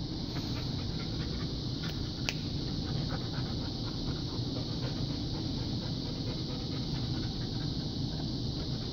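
Airedale terrier panting steadily.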